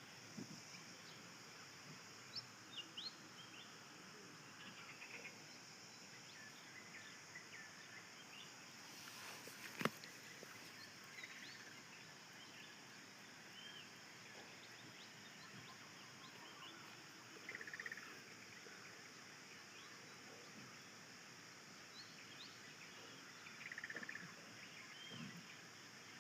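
Faint outdoor ambience: scattered short bird chirps over a steady high hiss, with one sharp click about ten seconds in.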